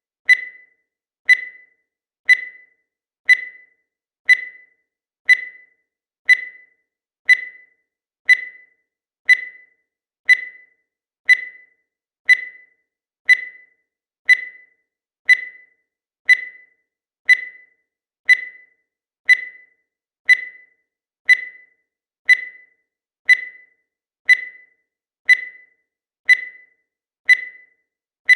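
Digital timer beeping once a second, marking each second of the countdown: a short, high beep each time, fading quickly.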